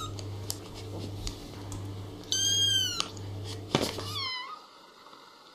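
Kitten meowing: one high mew that rises and falls, about two seconds in, then a short falling mew near the four-second mark. A low steady hum runs under them and stops after the second mew.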